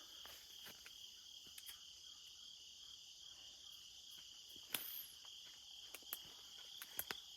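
Faint, steady chorus of crickets chirring, with a few soft clicks, the sharpest a little under five seconds in.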